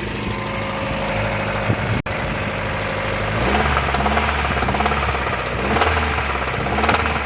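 Toyota 5E-FE four-cylinder engine idling with a knock, the sign of internal engine damage after the piston rings alone were replaced. About three and a half seconds in the engine sound grows louder and more rhythmic.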